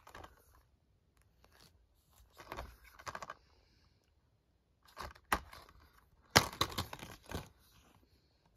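Plastic Blu-ray case being handled and turned over, with scattered clicks and rustles, and the loudest run of sharp clicks about two-thirds of the way through as the case is snapped open.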